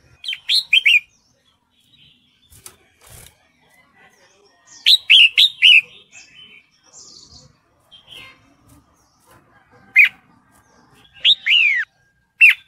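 Red-whiskered bulbul calling: short groups of quick, falling chirps repeated every few seconds. The call is presented as that of a female in breeding condition calling to a male, used as a lure.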